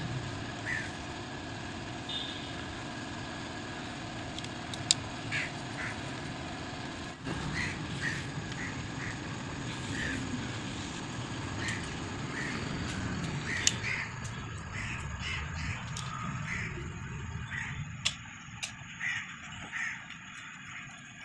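Sharp metallic clicks now and then from hand work on a Suzuki K6A engine's timing chain as the tensioner and its bolts are fitted, over a steady background hum. Short bird calls repeat throughout.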